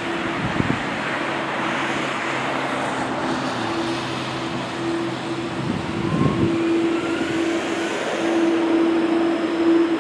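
Airbus A330-300 airliner's jet engines running at taxi power as it rolls past: a steady rush with a steady hum, and a faint rising whine in the second half.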